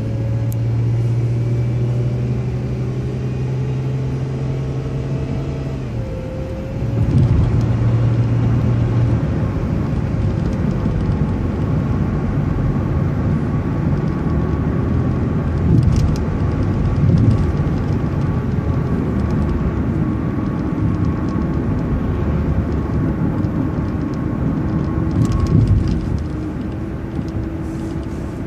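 Transit bus engine and drivetrain running while the bus drives, with a low steady hum and whining tones that drift in pitch. About six seconds in, the hum changes and the sound grows louder.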